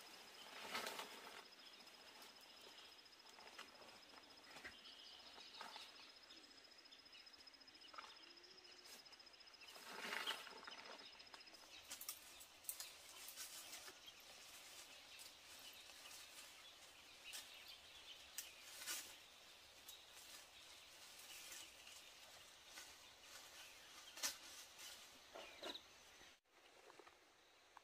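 Faint rural outdoor ambience with scattered soft rustles and light taps. A thin, steady high-pitched tone runs through the first half and stops about halfway.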